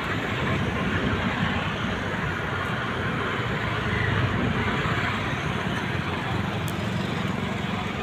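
Steady road traffic noise, a low even rumble.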